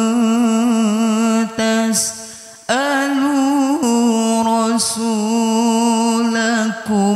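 A man's voice chanting Quran recitation into a microphone in the melismatic mujawwad style: long held notes with a wavering vibrato. About two seconds in the phrase breaks off briefly, then resumes on a higher note before settling back down.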